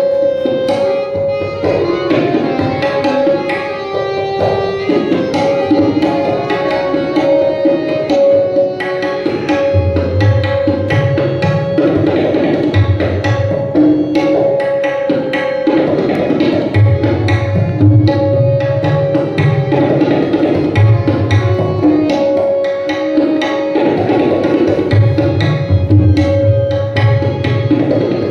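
Tabla solo in teentaal: rapid strokes on the dayan, ringing at its tuned pitch. Deep bayan bass strokes come in from about ten seconds in. Under it, a harmonium plays the lehra, the repeating melody line that keeps the cycle.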